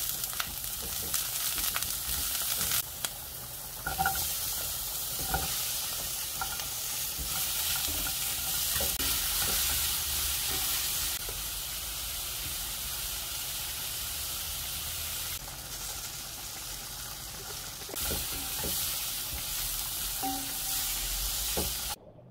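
Garlic and sliced green chilies sizzling in hot oil in a frying pan, then sliced Korean zucchini and onion being stir-fried, a steady frying hiss with tongs clicking against the pan now and then. The sizzle jumps in level several times and cuts off just before the end.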